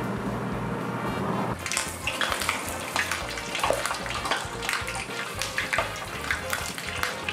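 Small horse mackerel deep-frying in a pot of hot oil at about 170–180 °C: a dense crackling sizzle, full of sharp pops, that starts abruptly about a second and a half in.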